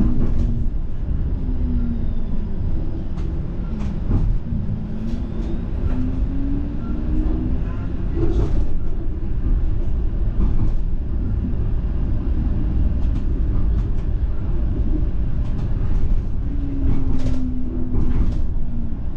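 TTC streetcar running on its rails, heard from inside the car: a steady low rumble from the wheels, with the traction motors whining up and down in pitch as it speeds up and slows, and a few sharp clacks along the way.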